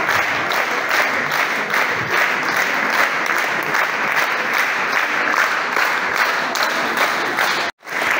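Audience applauding: a steady, dense clatter of many hands clapping. The sound drops out for an instant near the end.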